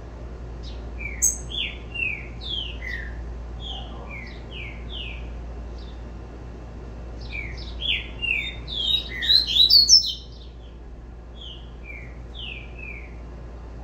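Young double-collared seedeater (coleiro) singing the tui-tui song type: phrases of quick, down-slurred whistled notes. There are two main bursts, the second louder and busier about nine to ten seconds in, then a few scattered notes.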